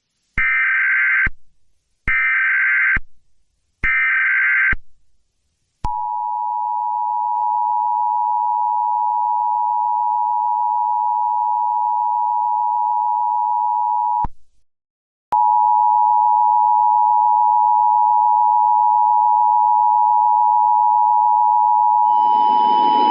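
Emergency Alert System tones. Three short screeching bursts of SAME digital header data come first. Then a steady two-tone attention signal sounds for about eight seconds, breaks off, and comes back louder about a second later for another eight seconds.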